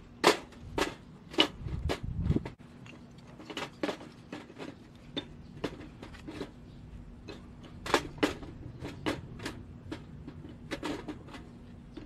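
Small split kindling sticks being stacked by hand in a thin sheet-steel mini grill: irregular light wooden clacks as the sticks knock against each other and the metal firebox, a dozen or more in all, with a duller bump about two seconds in.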